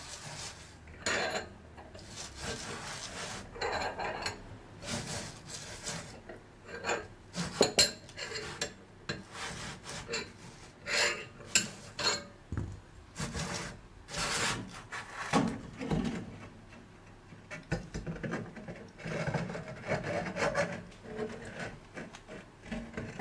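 An old immersion heater element being twisted and worked out of a hot water cylinder's threaded opening by hand: irregular scraping and rasping as the limescale-crusted element rubs against the hole, with a few sharp clicks. The chalky deposits make it a tight, difficult fit coming out.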